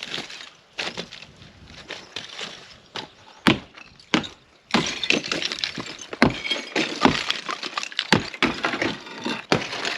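Demolition of an old wall: repeated sharp blows with debris breaking and falling, sparse at first, then dense, continuous clattering and crashing from about halfway through.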